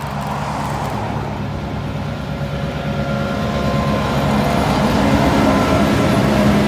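Vintage streamlined diesel-electric locomotive passing close by at speed, its engine drone growing louder as it approaches and goes by, followed by the rumble of its heritage passenger carriages rolling over the rails.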